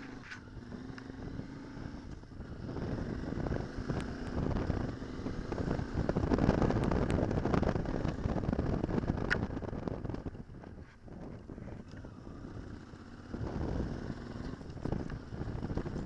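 Motorcycle engine running under way with wind rushing over the microphone. It gets louder to a peak in the middle, falls off for a few seconds, then picks up again near the end, with a couple of sharp clicks along the way.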